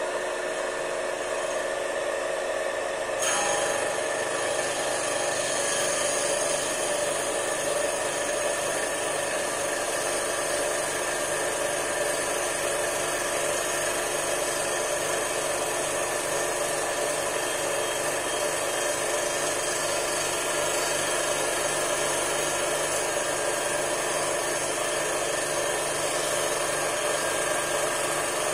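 Electric motor spinning an abrasive disc, running steadily as it grinds cured filler putty off steel guide rails. About three seconds in the sound turns brighter and slightly louder as the disc bites into the surface.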